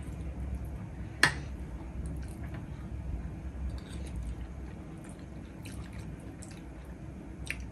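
Eating sounds from a mukbang: wet chewing and small mouth sounds of biryani being eaten. A metal spoon clinks sharply on a ceramic plate about a second in and again near the end, with lighter scraping ticks in between.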